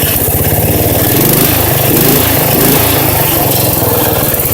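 Small engine running through a homemade exhaust built from a four-wheeler exhaust, with an even, rapid putter of firing pulses that wavers in pitch about a second or two in.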